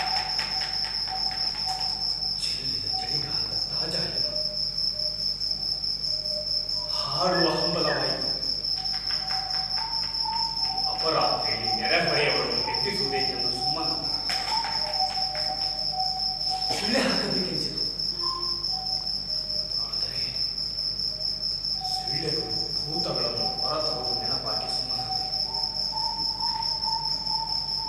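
Steady, high-pitched cricket chirring that runs without a break, with several short, louder passages of some other sound scattered through it and faint held tones lower down.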